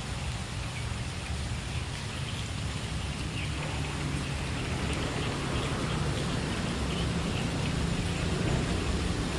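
Steady rain falling, an even hiss. Underneath it a low rumble grows slightly louder: the diesel locomotive approaching in the distance.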